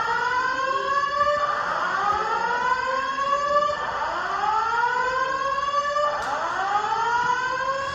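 Simplex TrueAlert fire alarm speakers sounding an evacuation whoop: a loud tone that rises in pitch, repeating about every two and a half seconds.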